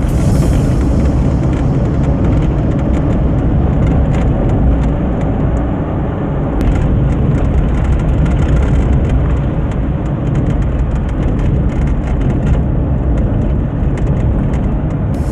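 Car driving, a steady low road and engine rumble with faint scattered ticks.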